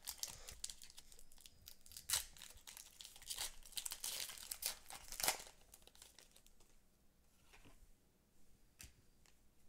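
A foil Pokémon TCG booster pack wrapper torn open by hand and crinkled, a run of sharp tearing and crinkling rasps over the first five seconds or so, the loudest about two and five seconds in, then only faint rustling as the cards are handled.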